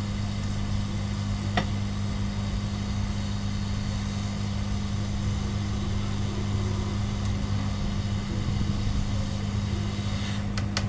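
Hot-air gun blowing steadily onto a circuit board to heat and desolder capacitors: an even blowing noise with a constant low hum. One light click comes about a second and a half in.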